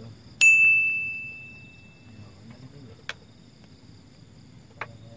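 A small metal bell is struck once about half a second in and rings with a clear high tone that fades away over about two seconds. Two faint short clicks come later.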